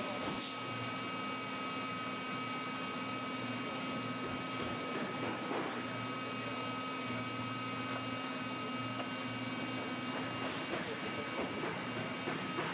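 Steady hum and whine of a hot-air plastic welder's blower running, one even pitch with no change.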